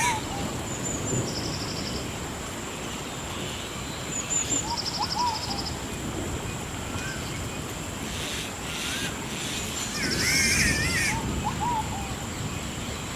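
Rainforest ambience: a steady high insect drone with a rapid pulsed trill that repeats every few seconds, short bird whistles and chirps, and a livelier warbling bird phrase about ten seconds in, over a low background rumble.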